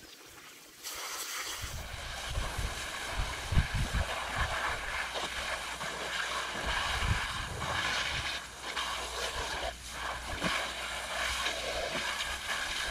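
Garden hose spraying water onto a fabric sail cover and the wooden dock: a steady hiss that starts about a second in, with wind rumbling on the microphone underneath.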